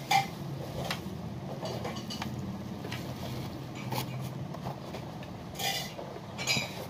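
Bubble-wrap packaging and a cardboard box being handled: scattered clicks and crinkles over a steady low hum, with a louder rustle near the end.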